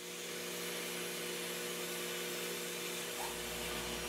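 CNC lathe running inside its enclosure: a loud steady hiss over a hum of several steady tones, with a deep low rumble joining about three seconds in.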